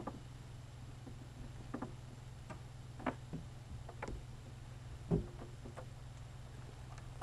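A few scattered light knocks and taps, one sharper knock about five seconds in, over a steady low hum.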